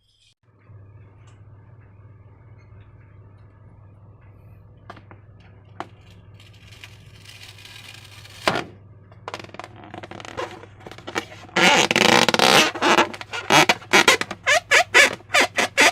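Slime being squeezed and worked by hand, giving wet squelching and popping that starts loud and dense about two-thirds of the way in and breaks into rapid irregular squishes. Before it there are only a steady low hum and a few faint clicks.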